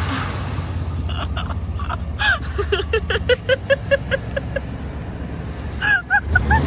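Chevrolet C1500 pickup's engine idling with a low steady rumble. Over it, from about a second in, come a quick run of short honking bird calls, roughly three or four a second, and a few more rising-and-falling calls near the end.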